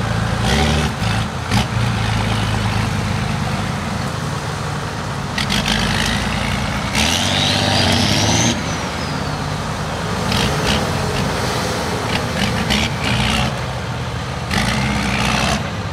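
Off-road 4x4 engines revving and easing off as the trucks crawl over rocks and stumps, with scattered knocks. A high rising whine comes about seven seconds in and again near the end.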